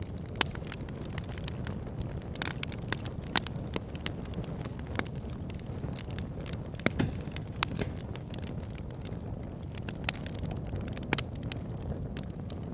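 Wood fire burning in a fireplace: a steady low rumble of the flames with irregular sharp crackles and pops from the logs throughout.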